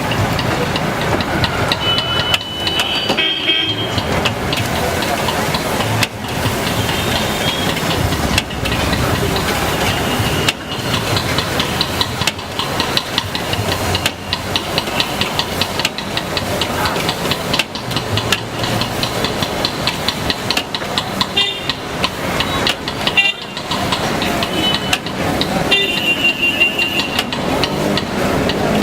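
Busy street traffic with vehicle horns honking several times, some as longer blasts and some as short quick toots, over a steady din of background voices.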